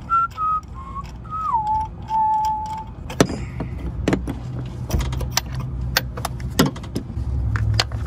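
A person whistles a short tune for about three seconds. After that come scattered sharp metallic clicks and taps of a socket wrench and extension turning a spark plug out of a V6 engine, over a low steady hum.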